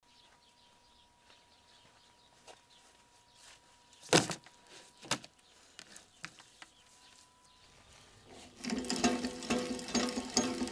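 Two thumps about four and five seconds in as a large carp is put down on a tabletop. From about eight and a half seconds, a barbecue grill's handwheel is cranked, its drive chain rattling over the sprockets with fast clicking as the scissor lift moves the grate.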